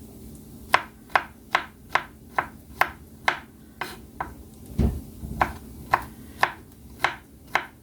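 Knife rough-chopping garlic cloves on a cutting board: sharp, even strokes about two a second, starting just under a second in, with one dull low thud about halfway through.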